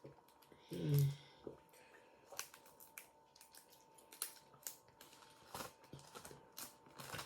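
Crab leg shells being cracked and broken apart by hand: scattered sharp snaps and clicks, with a short vocal sound about a second in.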